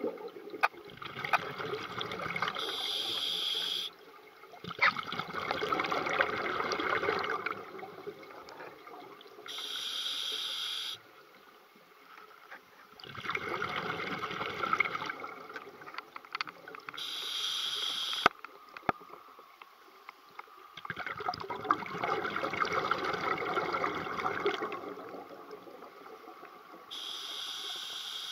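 Scuba diver breathing through a regulator underwater. Each breath is a short hissing inhale followed by a longer burst of bubbling exhaust, repeating about every seven to eight seconds, four breaths in all.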